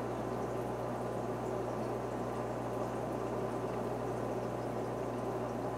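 Aquarium water bubbling and trickling steadily, with a low steady hum beneath.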